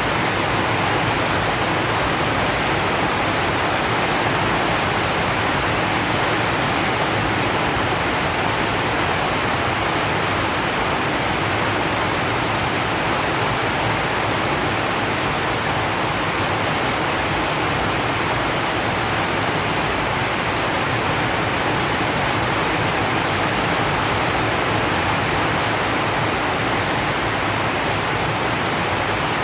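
Rain falling steadily on a zinc sheet roof, an even hiss that does not change.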